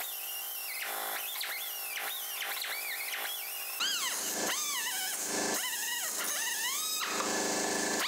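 Pneumatic cut-off tool with a small abrasive wheel cutting through sheet steel. Its high whine drops in pitch each time the wheel bites into the metal and climbs back as it frees, again and again.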